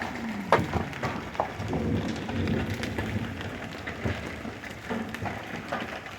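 Large hailstones and rain pelting down, with many irregular sharp hits over a steady hiss. A low rumble comes through about two to three seconds in.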